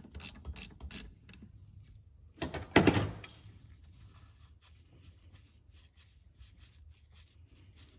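Ratchet wrench clicking, about three clicks a second, as a nut is turned off a brake master cylinder stud, stopping about a second in. About three seconds in comes a short, sharp clatter, the loudest sound, followed by faint ticks and rubbing.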